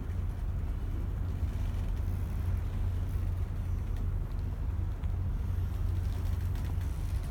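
Steady outdoor background noise, mostly a low rumble with a faint hiss above it and no distinct events.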